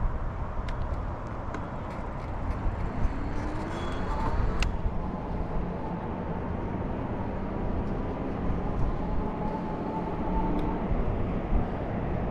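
Steady wind rush on the microphone and tyre and road noise from a bicycle being ridden, with a few sharp clicks in the first half, the loudest a little before halfway.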